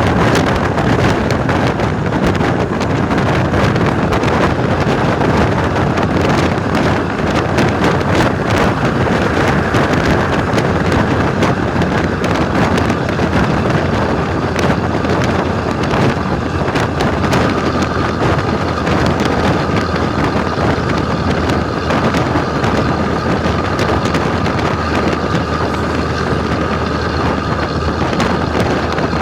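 Volvo B10M bus's six-cylinder diesel engine running, a loud steady drone with wind buffeting the microphone. A steady high whine comes in about halfway through.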